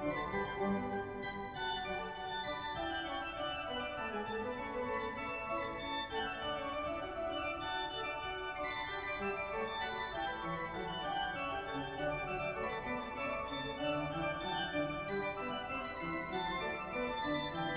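Background music with long held chords, steady in level.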